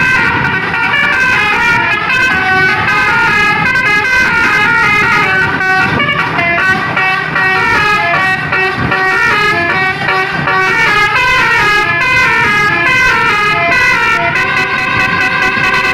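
Basuri telolet air horn on a tour bus playing a continuous tune, its trumpets stepping rapidly from note to note, over a low rumble.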